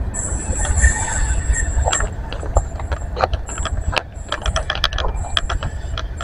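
Wagons of a freight train rolling past on the rails: a low rumble with rapid clicks and clacks. A high-pitched squeal comes and goes as the wheels take the curve.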